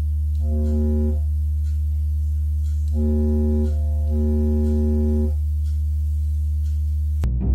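Music played through a valve phono amplifier: held, synth-like notes sound three times over a steady low drone, and fuller music with strings and percussion starts just before the end.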